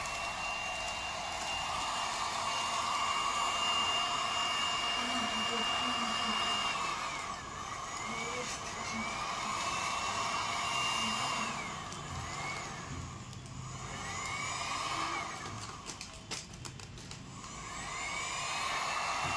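Handheld hot air gun running, a steady rush of blown air with a high motor whine. The whine sags and climbs back up several times, and a few clicks come about three quarters of the way through.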